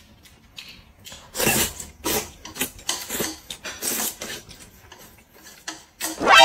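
A person slurping noodles off chopsticks in a run of short, noisy slurps, one every half second to a second. Just before the end a loud pitched tone comes in.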